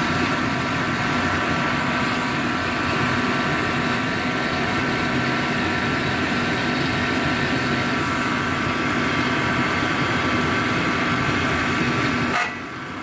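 Endress diesel forced-air heater running with its burner lit: a steady roar of fan and flame with a constant hum, as the fuel-pump pressure is set against a gauge. The sound drops away sharply for a moment near the end.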